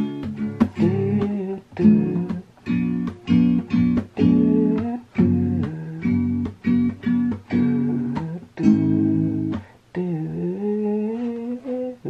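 Classical acoustic guitar played by hand: a steady run of plucked chords and single notes. Near the end a voice joins with a long, wavering sung note.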